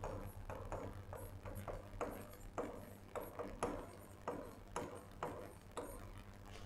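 Chalk writing on a blackboard: quick irregular taps and short scratches as each stroke lands, about three a second, over a low steady hum.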